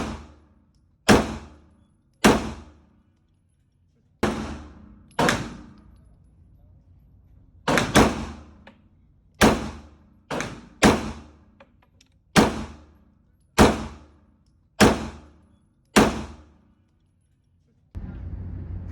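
Gunshots at an indoor shooting range: about fourteen single shots, mostly a second or so apart with a quick pair near the middle, each cracking sharply and dying away in the room's echo. A steady rushing noise comes in near the end.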